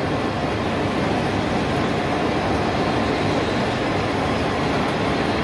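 TOS Hulín SKJ20A vertical turning lathe running, a steady mechanical rumble and hum from its drives as one axis feeds.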